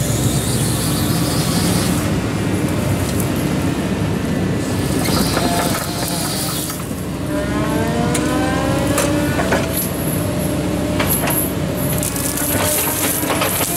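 Kobelco SK125SR excavator's diesel engine and hydraulics running loudly with an FAE forestry mulcher head spinning on its arm. About halfway through, a rising whine builds, and in the last few seconds there are several sharp knocks and cracks.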